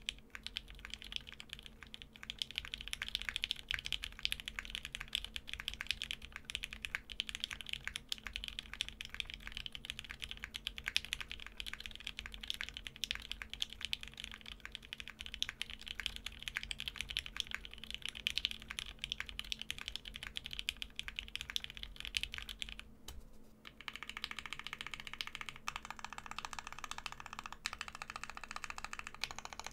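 Continuous fast typing on a plateless, undampened custom 60% mechanical keyboard, a Mekanisk Klippe T with JWK Lilac linear switches and PBT keycaps, giving a clacky key sound. After a short pause about 23 seconds in, the modifier keys on the left side are pressed over and over.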